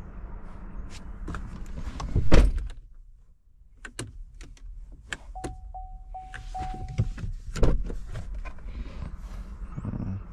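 Chevrolet Equinox driver's door shutting with a heavy thunk, cutting off the outside noise. A few clicks follow, then the car's warning chime beeps four times, then a second thunk after which the outside noise comes back.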